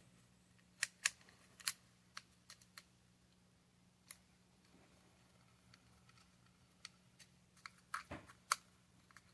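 Small screwdriver and plastic parts of a Lego train motor housing clicking and tapping as it is screwed back together: scattered short clicks, a group about a second in and a denser cluster near the end.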